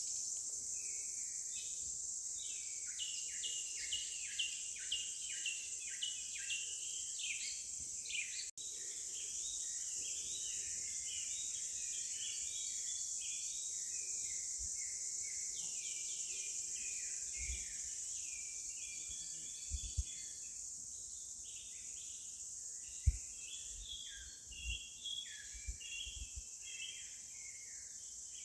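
Forest ambience: a steady high insect drone with many birds chirping and calling. There is a momentary dropout about a third of the way in, and a few low thumps in the second half.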